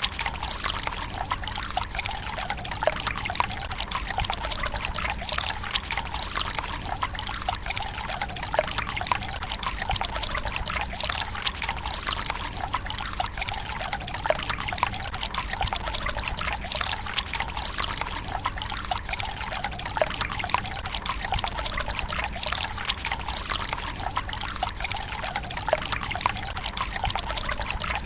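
Water running steadily into the stone basin of a Japanese tsukubai, trickling and splashing without a break, with many small splashes on top of the flow.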